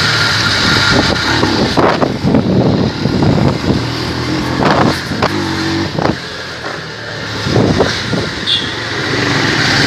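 Traffic and engine noise on a ride by motorbike through busy city streets: engines running with an uneven, rising and falling level and a short steady tone about five seconds in.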